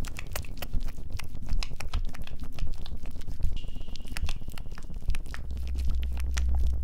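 Dense, irregular crackling and clicking over a low rumble, an abstract horror sound-design texture. A thin high tone holds for a second or two past the middle, and a deeper hum comes in near the end.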